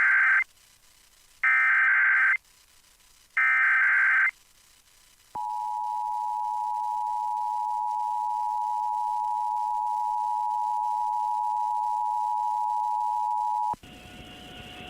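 Emergency Alert System tones on NOAA Weather Radio. Three screeching SAME data bursts of about a second each encode the alert header. The steady two-tone EAS attention signal follows for about eight seconds and cuts off suddenly, and a faint hiss comes in near the end.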